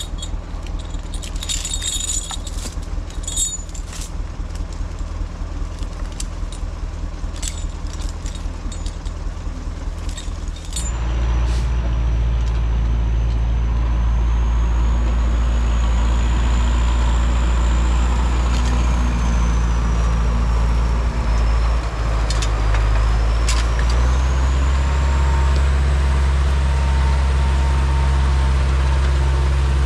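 LKT 81 Turbo skidder's diesel engine idling while steel chain clinks against the logs. About 11 seconds in the engine is throttled up to a loud, steady run with a thin high whine that rises and falls, and it steps up again a little after 24 seconds.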